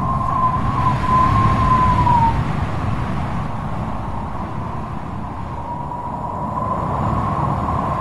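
A vehicle's steady low rumble, with a single high tone over it that wavers slightly, drops in pitch and fades about two seconds in, then rises back in toward the end.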